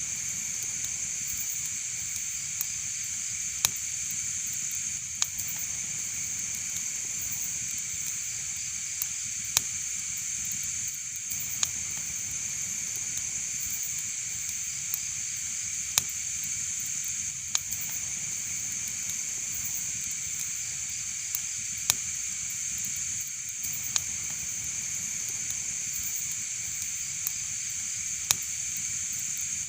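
Wood fire crackling in a fireplace: a steady hiss with sharp pops about every one to two seconds.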